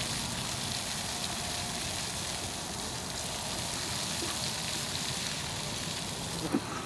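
Steady outdoor background hiss with a low, fluttering rumble of wind on the microphone, and a brief louder blip near the end.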